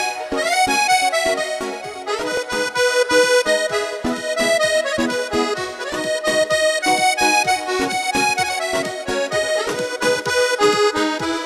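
Instrumental music with a steady beat and a melody line over it.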